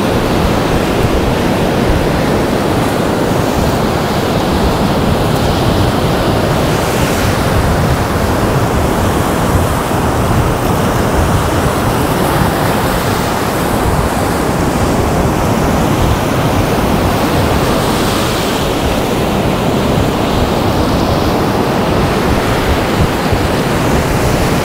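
Ocean surf breaking and rushing around pier pilings, mixed with wind buffeting the microphone in a steady, loud rush.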